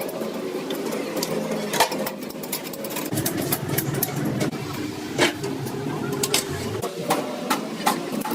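Sharp metallic clicks and taps of hand tools on engine parts, irregular and scattered, over a steady machine hum.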